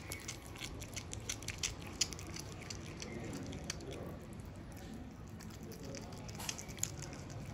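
Cat chewing and tearing at a piece of raw fish: a run of quick wet clicks and smacks in the first two seconds, fewer in the middle, and more again near the end.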